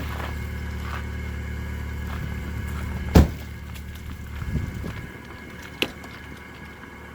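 Chevrolet Cavalier engine running with a steady low hum. A single loud thump comes about three seconds in, after which the hum is a little quieter, and a sharp click follows near the end.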